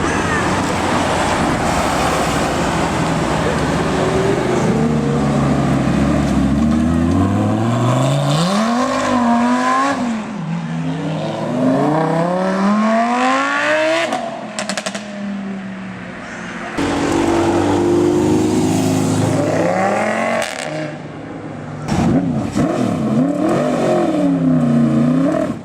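High-performance car engines revving hard and accelerating: the pitch climbs steeply, drops back and climbs again several times, with a run of quick up-and-down revs near the end.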